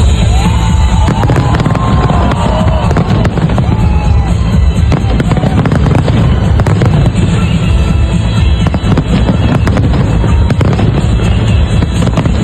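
Fireworks display: a dense run of bangs and crackles over loud music, with a few gliding whistles in the first three seconds.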